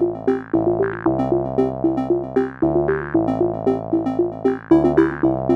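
Background music: an electronic synthesizer track with a quick repeating pattern of notes over sustained bass notes.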